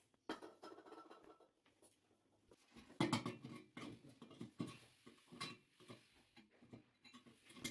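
Irregular handling noises: scraping, light clicks and knocks, as of parts and tools being moved about by hand, with the loudest knock about three seconds in.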